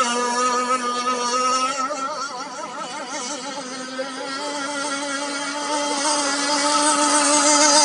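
Motor of a model shrimp boat running with a steady whine; in the middle its pitch wavers and it briefly quietens, then it steadies and grows louder again.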